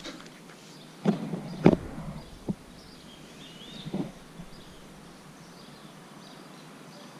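Steady outdoor background noise, with rustling and a couple of thumps about one to two seconds in as a person settles into tall grass holding the camera. A faint short high chirp follows around the middle.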